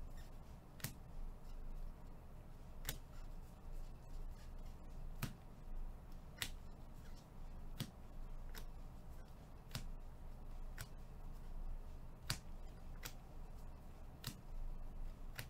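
Baseball trading cards being flipped one by one through a stack held in gloved hands. Each card gives a light, sharp click as it snaps against the others, at an uneven pace of about one a second, over a steady low hum.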